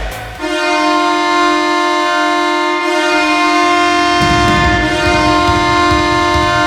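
Belleville Senators hockey goal horn sounding one long, steady, loud blast, starting about half a second in; a low rumble joins underneath about four seconds in.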